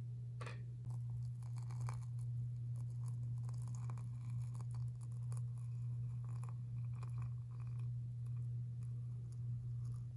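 Hot water from a kettle poured in a thin stream onto dried chrysanthemum flowers in a stainless mesh tea infuser, with soft irregular ticks and trickling. A steady low hum runs under it and is the loudest sound.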